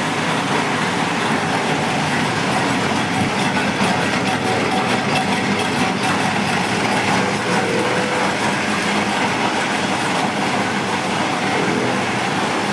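Lathe running with a tool cutting: a loud, steady mechanical noise.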